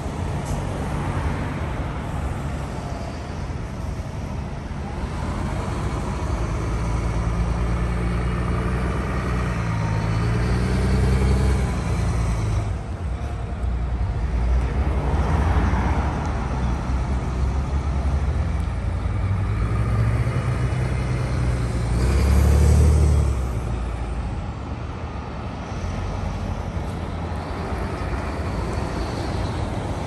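A convoy of diesel coaches and cars driving past one after another, their engines running as each goes by. Two passes stand out, the louder one about three-quarters of the way through.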